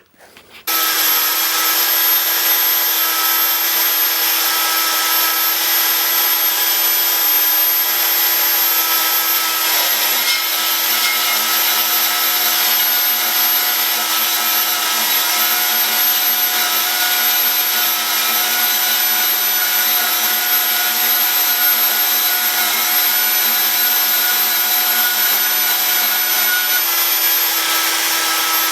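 Metal-cutting bandsaw starting just under a second in and running steadily while cutting a scooter brake pad down to size, a constant motor hum with a high whine.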